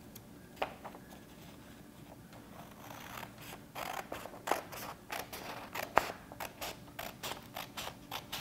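Scissors cutting through a sheet of printer paper. A few faint isolated clicks, then from about three seconds in a steady run of snips, about three a second, with one sharper snap near the middle.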